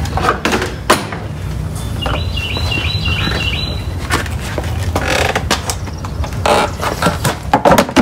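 Handling noise in the cargo area of a Ford Expedition: knocks and rustles as a cordless drill is picked up and the carpeted jack-cover floor panel is lifted and set in place, busiest in the second half. A bird chirps a short run of repeated notes about two seconds in.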